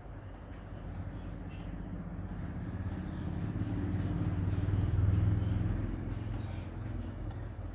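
A motor vehicle passing by: a deep rumble that builds to its loudest about five seconds in and then fades away, with a few faint clicks near the end.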